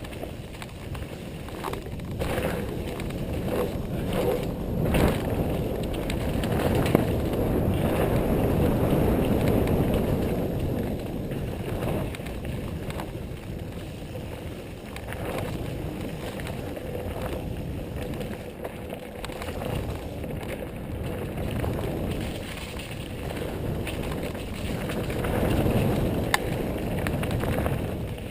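Mountain bike riding down a dirt trail: continuous tyre and chassis rumble that swells and eases with the terrain, with a few sharp knocks and clatters as the bike hits bumps.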